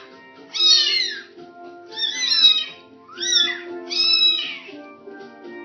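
Bengal kittens mewing: four high-pitched mews, each rising and then falling in pitch, over quiet background music.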